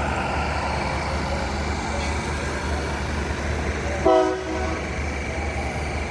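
Diesel passenger train running steadily at the platform, with one short toot of its horn about four seconds in.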